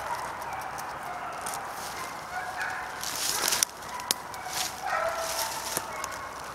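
Hounds baying in the distance as they run deer, with rustling and a few sharp clicks close to the microphone as the hunter moves and handles his gear, loudest a little past halfway.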